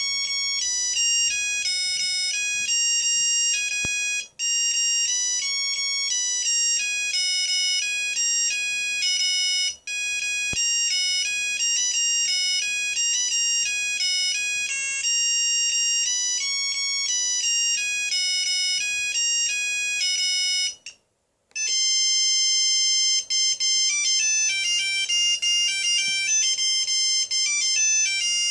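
Samsung SCH-3500 cell phone playing its built-in ringtones one after another: high-pitched electronic beeping melodies in quick, stepping notes. About 21 seconds in, one tune stops dead and after a short silence the next ringtone begins.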